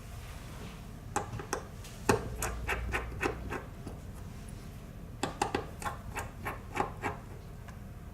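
Two bursts of quick, sharp clicks and knocks, the first about a second in and the second after about five seconds, over a steady low hum.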